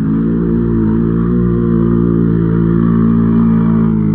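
ATV (quad) engine running at steady, moderate revs close by, its pitch holding nearly even with slight wavers.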